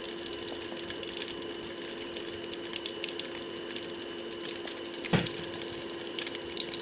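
Slices of canned chicken luncheon meat frying in shallow oil in a wok: a light, irregular crackling sizzle over a steady hum, with one louder knock about five seconds in.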